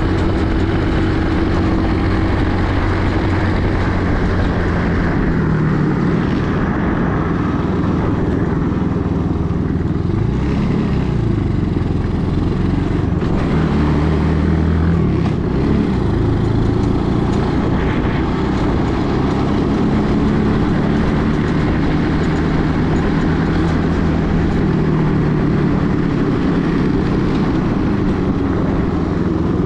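Small 50cc four-wheel buggy (ATV) engine running under way, a steady note whose pitch rises and falls with the throttle a couple of times about a third and halfway through.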